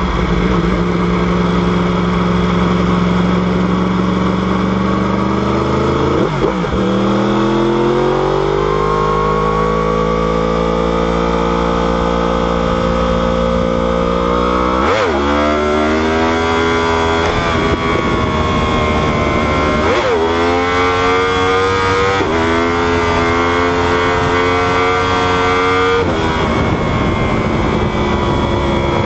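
Inline-four superbike engine running hard through the gears. Its pitch climbs steadily and drops sharply at each gear change, several times over.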